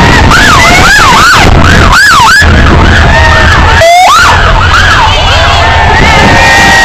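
Police motorcycle siren sweeping quickly up and down in pitch, over a loud cheering crowd.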